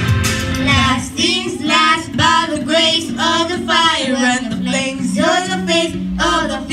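Boys singing through handheld microphones over backing music, with held, wavering notes; the voices come in about a second in.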